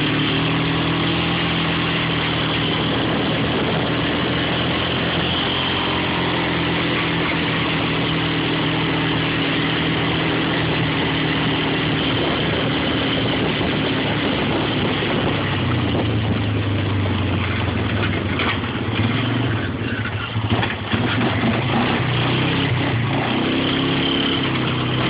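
A small vehicle's engine running steadily while driving. Its note drops about two-thirds through, with a few knocks around twenty seconds in, then rises again near the end.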